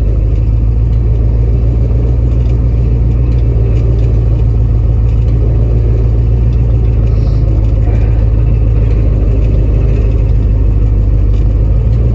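Old pickup truck driving, heard from inside the cab: a loud, steady low drone of engine and road noise.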